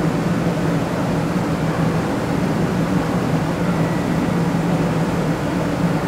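Air-conditioning units of a stopped Shinkansen 500 series train running: a steady pitched hum of held tones under a hiss like TV static, which the uploader hears as a B-flat and D chord.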